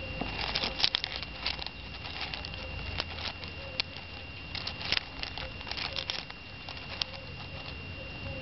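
Baby tamandua pawing and scrabbling among loose gravel: irregular small clicks and crackles of stones shifting under its claws, some in quick clusters.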